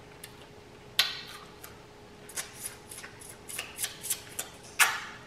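Close-up mouth sounds of biting into and chewing a strawberry: a sharp bite about a second in, then a run of small irregular clicks and smacks, and a louder bite near the end.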